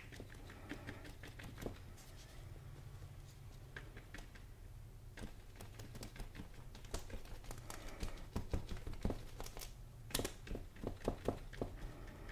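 Paintbrush dabbing acrylic paint onto a canvas: irregular soft taps, sparse at first and coming faster for a few seconds in the second half, over a steady low hum.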